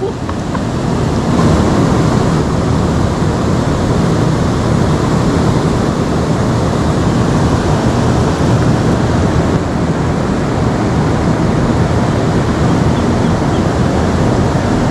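Fast-flowing river water rushing steadily and loudly.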